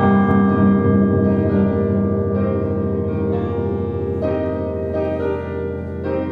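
Slow closing music of sustained, ringing chords, a new chord entering about once a second.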